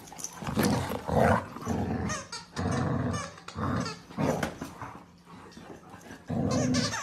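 Dogs play-growling during rough play over a toy, in a series of short, rough bursts with a quieter stretch about two-thirds of the way through.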